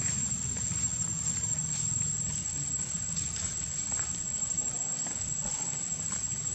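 Steady, high-pitched insect trill, typical of crickets, continuing unbroken over a low background rumble, with a few faint clicks.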